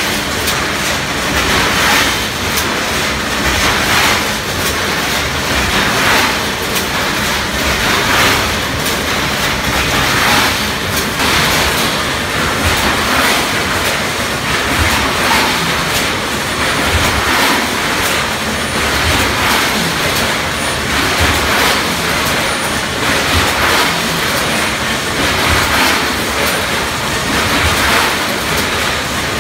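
BHP 280D premade doypack bag filling and sealing machine running steadily as a loud, even mechanical noise that swells in a regular rhythm about every two seconds.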